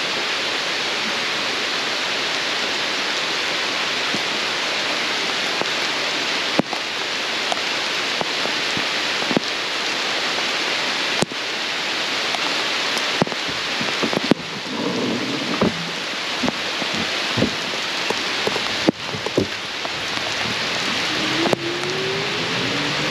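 Steady rain hissing down, with scattered sharp clicks of drops striking close by. Near the end a rising whine starts up.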